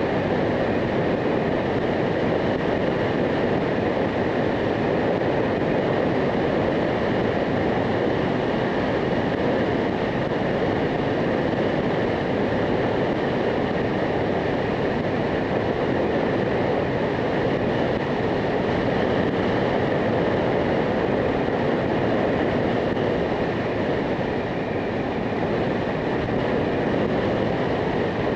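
Motorcycle riding at a steady cruising speed: a constant rush of wind and road noise with the steady hum of the engine underneath.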